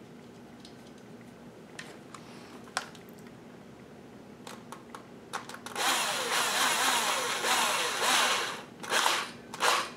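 Black & Decker cordless drill/driver driving a screw to fix the base foot to a baby gate's frame: a few light handling clicks, then the drill runs for about three seconds with its pitch wavering, followed by two short bursts near the end as the screw is run home.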